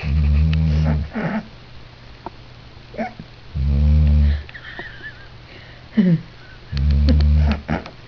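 A dog snoring loudly in deep sleep: three deep snores, each about a second long and about three seconds apart, each followed by a shorter breath.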